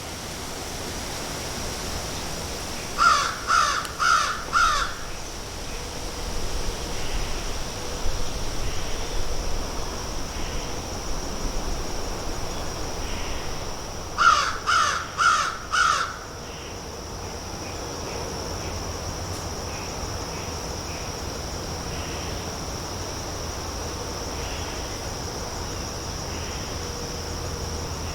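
Crows cawing in two series of four short, harsh caws, the first about three seconds in and the second about fourteen seconds in. A steady high-pitched insect drone runs underneath.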